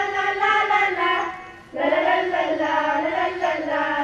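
A group of girls singing a song together in unison, with a brief pause in the middle before the singing picks up again.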